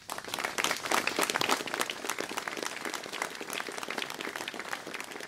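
Audience applauding: many hands clapping, starting suddenly and slowly thinning out.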